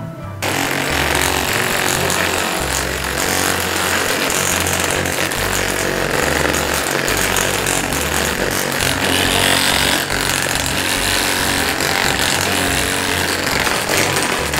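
Percussive massage gun hammering against the shoulder and neck muscles, a steady, rapid buzzing that starts suddenly about half a second in.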